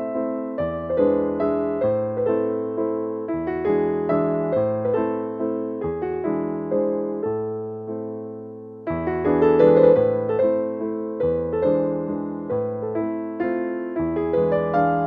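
Background piano music, with notes struck at a steady pace over low bass notes that change every second or so. It fades a little about eight seconds in, then comes back louder.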